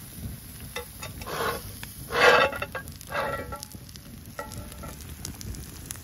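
A utensil stirring and chopping a burger into sizzling potatoes in a hot pan: three scraping strokes about a second apart, the loudest a little over two seconds in, then a fainter one.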